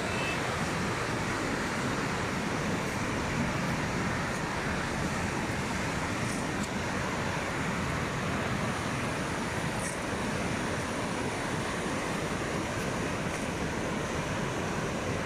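Steady rush of a swollen, muddy mountain river in spate, a constant even roar of fast-flowing water.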